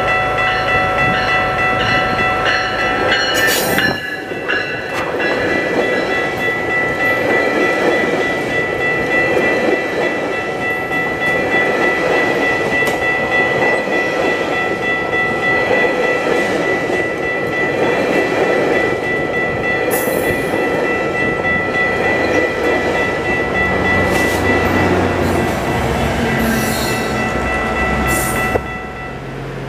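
GO Transit commuter train of bilevel coaches passing over a level crossing: a loud, steady rumble and clatter of wheels on the rails that drops off suddenly near the end as the last car clears. The train's horn sounds over the first few seconds, and the crossing's warning bell rings steadily until the train has passed.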